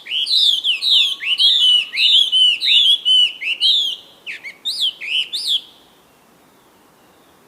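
A bird chirping: a quick run of high, arching chirps, about three a second, stopping about six seconds in.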